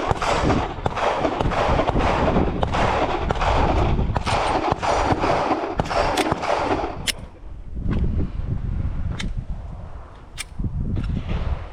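Range gunfire: a rapid string of gunshots for about the first seven seconds, then a few single sharp cracks spaced a second or two apart.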